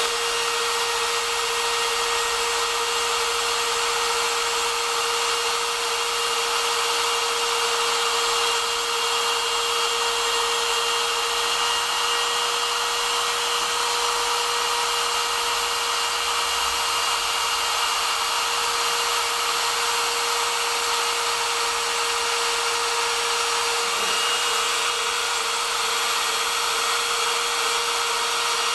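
Router spindle motor of a homemade CNC router running steadily with a constant whine, its bit cutting letters into wood.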